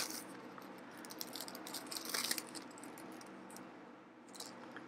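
Faint rustling and crinkling of a thin polyethylene packing sheet being handled, with scattered small clicks and a brief louder cluster about two seconds in.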